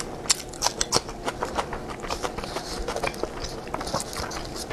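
Close-miked mouth sounds of chewing sticky rice dumpling (zongzi), with many irregular sharp wet clicks and smacks of lips and tongue.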